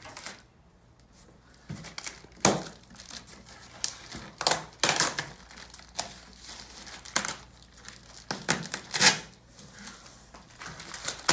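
Packaging crinkling and rustling in irregular bursts as parts are unpacked from a box, with the loudest rustles about a quarter, half and three-quarters of the way in.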